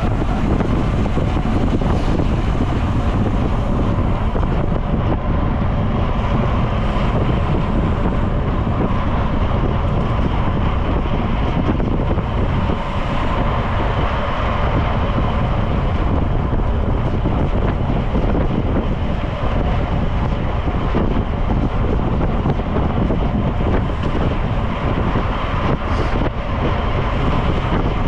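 Steady wind rush over the microphone of a camera carried on a road bike riding at speed.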